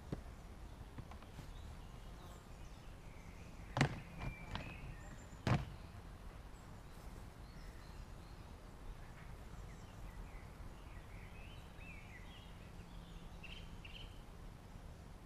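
Quiet garden ambience with birds chirping now and then, and two sharp knocks about a second and a half apart, roughly four and five and a half seconds in.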